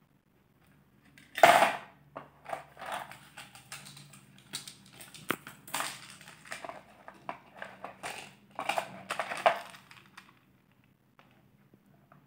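Jewellery being handled: a rudraksha mala's metal bead caps and oxidised silver jhumka earrings clink and rattle, with crinkly handling noise, in irregular clatters from about a second in, loudest near the start and again around nine seconds, dying away near the end.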